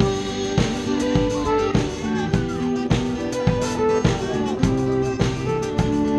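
Small live band playing an instrumental passage without vocals: a drum kit keeps a steady beat of strikes about every 0.6 seconds under a strummed acoustic guitar, electric bass and violin.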